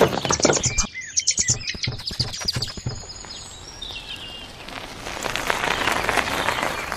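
Birds chirping in a garden ambience. A quick run of clicks and short chirps comes in the first two seconds, and a swelling rush of noise builds near the end.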